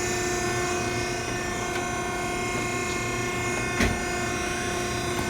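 Cardboard baler's hydraulic motor running with a steady hum, with one sharp knock a little under four seconds in.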